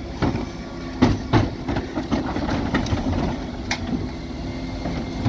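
Dennis Elite 6 refuse truck idling with a steady hum from the engine and hydraulics while its Terberg OmniDe bin lift works. Wheelie bins give several sharp knocks and clatters against the lift, the loudest about a second in and near the four-second mark.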